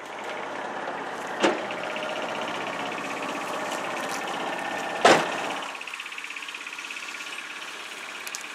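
John Deere Gator utility vehicle's engine running, with two loud thumps about a second and a half and five seconds in. About six seconds in, the engine sound drops to a lower, evenly pulsing run.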